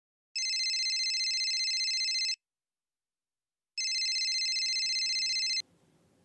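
A mobile phone ringing with an electronic trilling ringtone: two rings of about two seconds each, with a short pause between them. The second ring stops a little before the end, leaving faint room hum.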